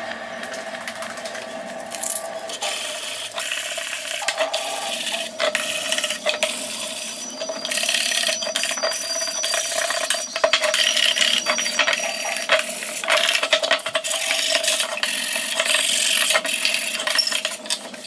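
Wooden box being handled: a thin wooden strip and pine panels rubbing, sliding and knocking together in many small clicks and scrapes, over a steady faint hum.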